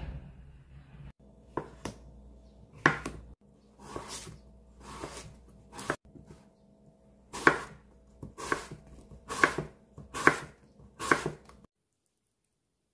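Kitchen knife slicing carrots on a wooden cutting board: about ten sharp knocks of the blade against the board, roughly one a second, with softer cutting strokes between.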